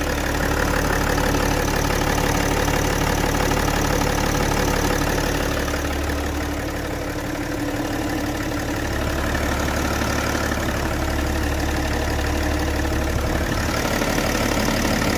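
BMW 330d's M57 straight-six diesel engine idling steadily, with a knocking clatter that the owner is unsure is normal.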